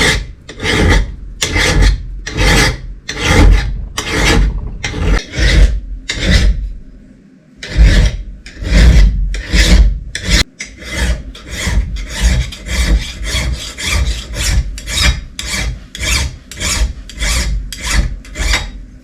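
A metal vise part being abraded by hand in steady back-and-forth strokes, a rasping rub on each stroke. The strokes pause briefly about seven seconds in, then come faster after about ten seconds.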